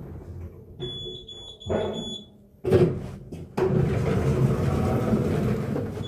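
A high electronic beep held for about a second and a half, followed by a couple of knocks and then a steady, louder rushing noise.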